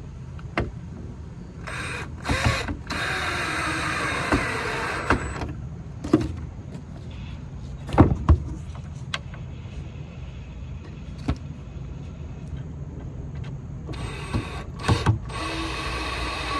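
Cordless drill-driver driving screws to fasten a shelf: two runs of the motor, one about two seconds in lasting some three seconds and another starting near the end, with knocks and clicks of handling between them.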